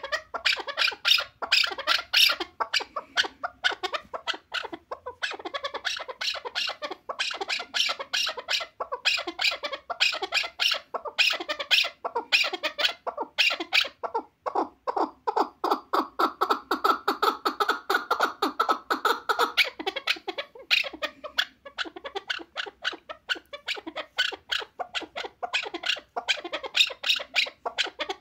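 Chukar partridge calling: a long, unbroken series of rapid, harsh clucking notes. In the middle the notes run together into a faster, denser chatter.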